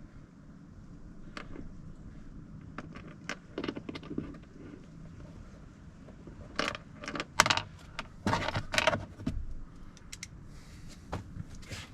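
Scattered clicks and clattering of small hard parts being handled, with the loudest run of sharp clicks and rattles between about six and a half and nine seconds in.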